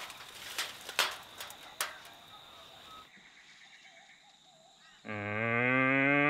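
Sharp knocks and scuffs of boots on a metal high-seat ladder during the first three seconds. About five seconds in, a hunter starts an imitation red stag roar. It is one long, loud, low roar that rises slightly in pitch and is still going at the end.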